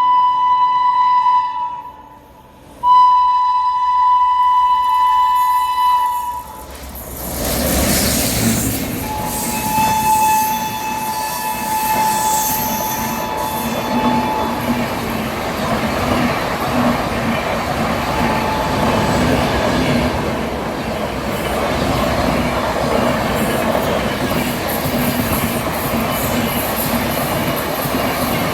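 Express train horn sounding two long blasts as the train approaches, then the train rushing past at speed with a burst of noise. The horn is heard again at a lower pitch after the train has gone by, the Doppler drop. After that comes a long steady rumble of the passing coaches with rhythmic clickety-clack of wheels over rail joints.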